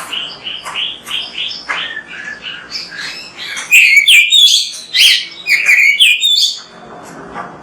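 Oriental magpie-robin (kacer) singing: a run of quick short notes, then a louder burst of rapid, varied high phrases from about four to six and a half seconds in, dropping back to softer notes near the end.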